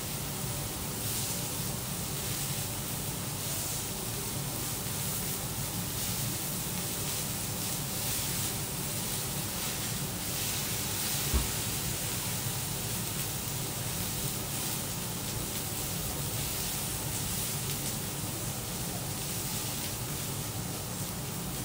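Beef cubes sizzling on a steel teppanyaki griddle, a steady hiss, with one sharp tap of a metal utensil on the griddle near the middle.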